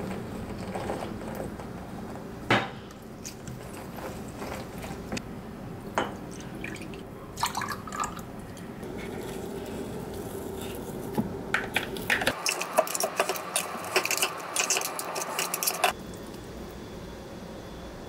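Kitchen utensils clinking and tapping against glass and dishes. There are a few separate knocks in the first half, then several seconds of quick, dense clinking and scraping in the second half.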